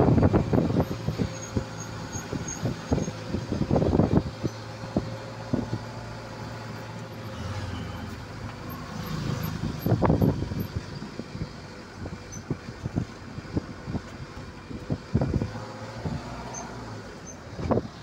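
A motor vehicle running on a rough road, heard from inside the vehicle. There is a steady low rumble, with irregular knocks and rattles from bumps, the loudest about four seconds and ten seconds in.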